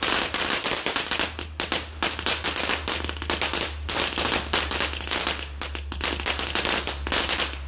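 Small firework fountain spraying sparks with a dense, rapid crackle of many tiny pops, which dies down near the end.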